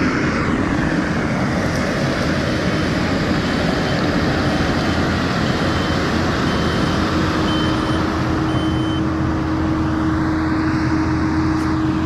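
Skid steer's diesel engine running steadily with its hydraulics working the tree shear, a steady whine growing stronger in the second half. A reversing alarm beeps about once every two thirds of a second through the middle, and near the end a higher whine rises and falls.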